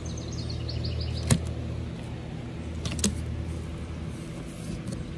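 Two sharp snaps, one about a second in and a fainter one about three seconds in, as a plastic strapping band is pulled off a cardboard shipping box. A bird chirps a quick run of notes near the start over a steady low hum.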